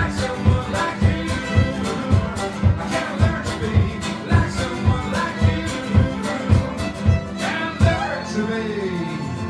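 Live band playing an up-tempo instrumental passage, with a steady beat of about two hits a second under the melody.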